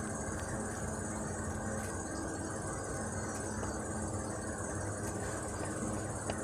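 A steady low hum with an even hiss over it, and a faint click about six seconds in.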